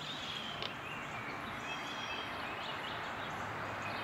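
Birds singing in woodland over a steady outdoor background hiss, with short high chirps and whistles scattered through.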